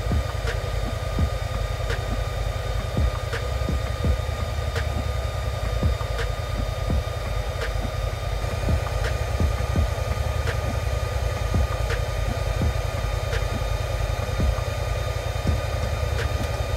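Side-by-side UTV engine idling with a steady low hum, a faint tick repeating about every second and a half.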